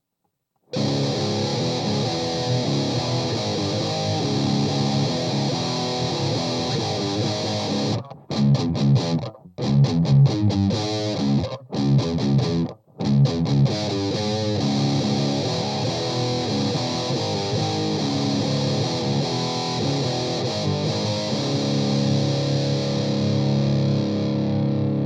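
Electric guitar played through a Saphue Crunch distortion pedal and an Orange Rocker 15 amp into a Celestion Vintage 30 speaker, heavily distorted. It comes in about a second in with steady distorted riffing, breaks into short stop-start chugs with brief silences in the middle, then settles back into sustained distorted chords.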